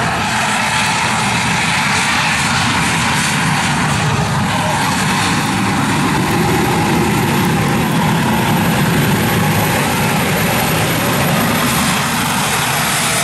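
Jet-engine golf cart's turbine running steadily as the cart drives along, a loud, even rushing noise with little change.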